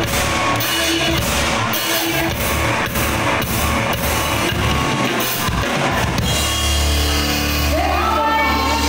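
Live band playing a loud dance number: drum kit beating steadily about twice a second over bass and keyboard. Near the end the drum hits ease off and a woman's singing voice comes in.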